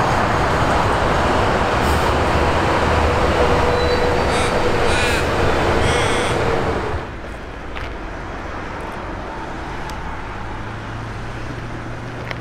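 X'trapolis electric commuter train running past along the platform: wheel and rail noise with a steady motor whine and a few brief squeals. About seven seconds in it cuts off suddenly to a quieter steady background.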